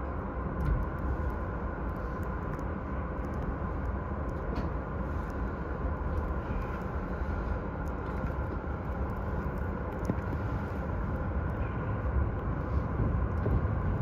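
E231-1000 series electric commuter train running again after its emergency stop: steady rumble of wheels on rail and traction motors heard from inside the train, with faint steady tones and light clicks, getting a little louder near the end.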